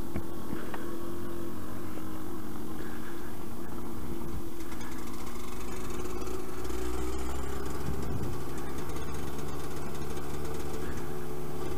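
Yamaha DT125 YPVS two-stroke single-cylinder trail bike engine running steadily at low revs. Its note shifts lower and then back up about two-thirds of the way through.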